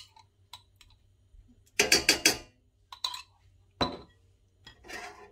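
A metal spoon clinking and knocking against a small glass jar and a stainless steel pan as crab paste is scooped out and tapped off: light clicks early, a quick run of clinks about two seconds in, then single knocks.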